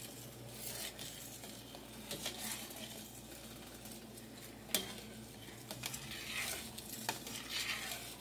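A metal utensil stirring thick, simmering onion gravy in a stainless steel pot, with soft scraping and light clinks against the pot and one sharp knock a little under five seconds in.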